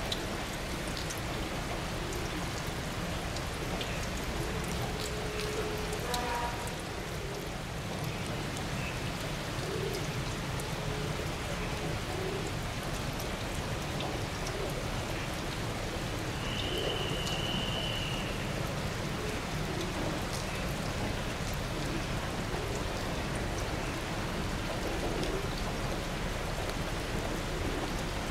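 Steady rain pattering, with a low rumble underneath. A brief high tone comes about 17 seconds in.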